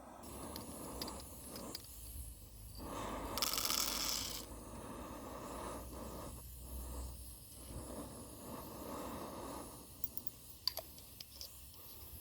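Hand coffee grinder being cranked, the burrs grinding beans with a scraping, ratcheting sound that stops briefly a couple of times. A short, loud hiss comes about three and a half seconds in, and a few light clicks come near the end.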